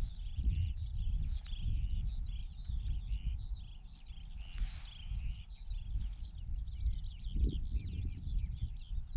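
Many small birds chirping in a dense chorus of short, quick high chirps, over a low rumbling noise.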